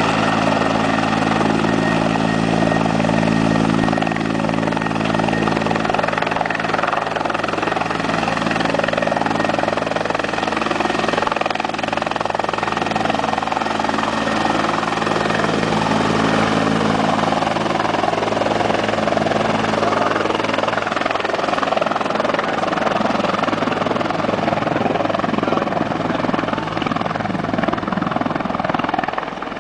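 Canadian military helicopter's main rotor and turbine engine running as it hovers low, then moving off, with a slight drop in loudness near the end.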